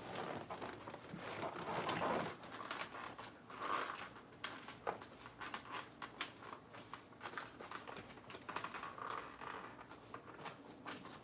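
Soft rustling and crinkling with many scattered small clicks as salad with crushed croutons is handled.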